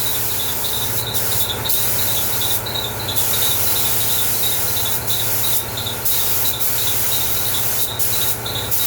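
Air spray gun hissing as it sprays primer onto a car body panel, the hiss cutting out briefly several times as the trigger is let off and pulled again, over a steady low hum.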